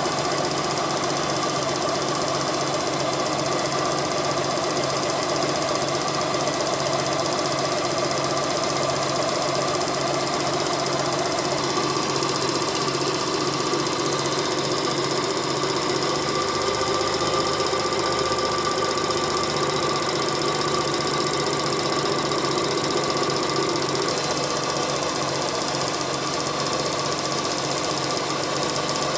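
Suzuki Cappuccino's small turbocharged three-cylinder engine running steadily, with a slight change in its note about halfway through.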